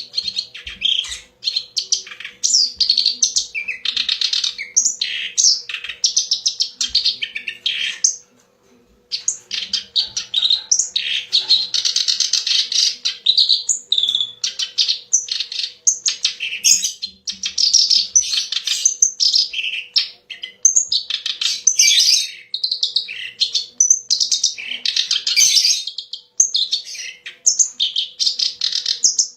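Kerak basi (reed warbler) singing a long, rapid, chattering and varied song in quick phrases, with a brief pause about eight seconds in. A faint steady hum runs underneath.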